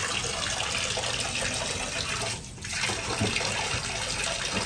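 Water running from a wall tap and splashing into a full plastic basin, a steady rushing splash that drops out briefly about halfway through.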